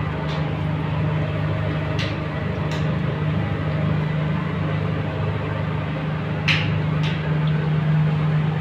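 Breaded fish fingers deep-frying in hot oil: a steady sizzling hiss with a few sharp pops, over a steady low hum.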